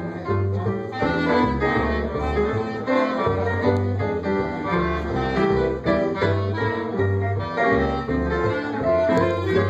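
Live band playing an instrumental break in a jazz-style standard: a melody instrument over a moving bass line, with no singing.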